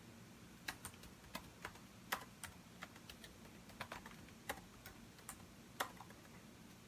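Typing on a computer keyboard: a run of irregular keystroke clicks that starts about a second in and stops shortly before the end, over a faint steady low hum.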